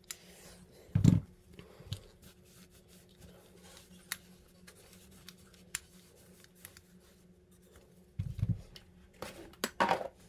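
A steel 1911 pistol being handled and wiped down with a microfiber cloth: small clicks and rubbing, with a dull thump about a second in and another about eight seconds in as the pistol is laid flat on a rubber gun mat, followed by a few sharper clicks near the end. A faint steady low hum runs underneath.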